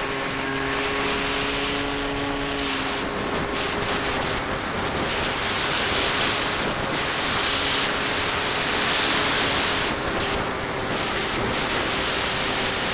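Ares Gamma Pro RC floatplane in flight, its electric motor and propeller giving a steady hum under a heavy rush of wind over the onboard microphone.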